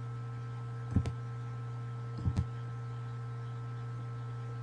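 Two double clicks at the computer, about a second in and again a little past two seconds, over a steady low electrical hum.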